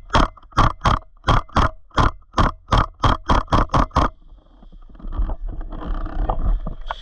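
A rapid, uneven series of about a dozen sharp knocks over about four seconds, coming faster toward the end, followed by softer rustling.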